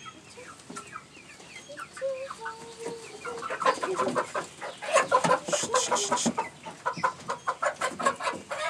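Hens clucking, sparse and quiet at first, then a busier, louder run of clucks from about three and a half seconds in.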